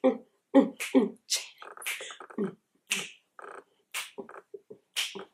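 A woman making rhythmic beatboxing-style mouth sounds: short voiced beats, sharp hissed 'ts' sounds about once a second, and quick rattling trills in between.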